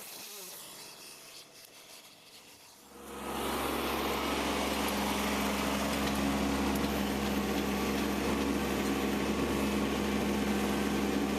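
An engine starts up about three seconds in and runs steadily.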